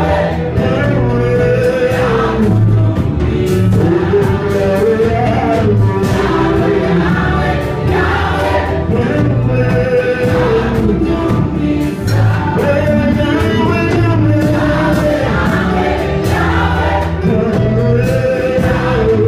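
Live gospel praise singing: a male lead singer and a choir, backed by a band with drums and bass keeping a steady beat.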